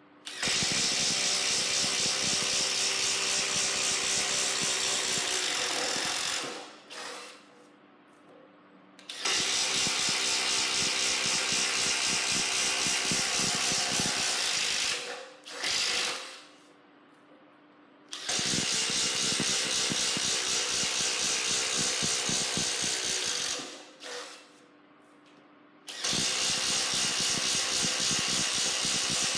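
Makita XTD15 18V subcompact brushless impact driver hammering as it bores through a wooden board with a spade bit: four runs of five to six seconds each, with short pauses between holes.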